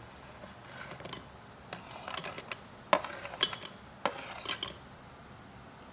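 Metal spoon scraping and clinking against a plate as fried cashews are pushed off it into a pot: about half a dozen light, sharp clicks spread out over the few seconds.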